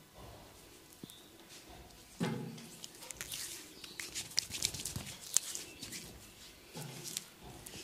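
A quick run of sharp crackling clicks from a barber's massage, lasting a few seconds, opened by a short low thump about two seconds in, with another low thump near the end.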